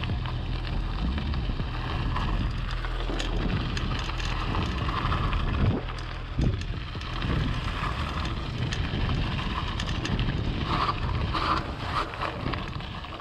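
Wind buffeting the microphone of a handlebar-view camera while riding an electric mountain bike, mixed with the rumble of its tyres rolling over a gravel path. The noise is steady and uneven, dipping briefly about halfway through.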